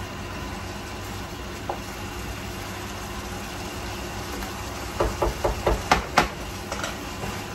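Steady hum of a kitchen range hood fan. About five seconds in, a quick run of six or seven knocks as a wooden spoon is tapped against the rim of a steel pot, the loudest near the end of the run.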